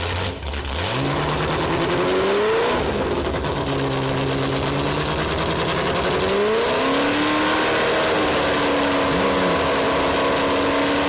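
Ford GT40's V8 engine, hot-cammed with a lumpy, aggressive cam, revving up. The pitch climbs over about two seconds, falls back and holds, then climbs again about six seconds in and settles on a steady higher note.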